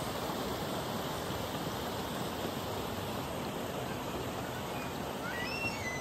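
Shallow, rocky river rushing steadily over stones and small rapids, with a few faint high chirps near the end.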